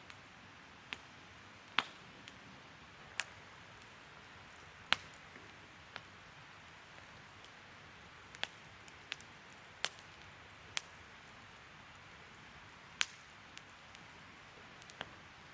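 Wood fire crackling: sharp, irregular pops and snaps about once a second over a soft, steady hiss.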